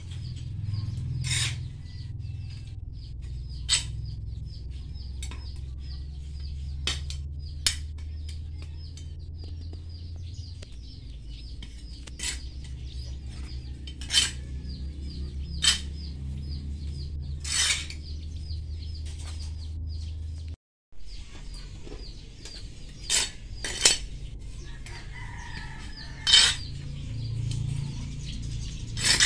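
Potting soil and pots handled during repotting: sharp knocks and clicks every second or few, over a steady low hum and a faint rapid chirping.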